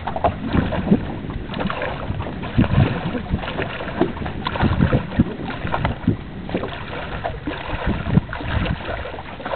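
Wind buffeting the microphone in uneven gusts, mixed with water sloshing and splashing around legs wading through shallow lake water.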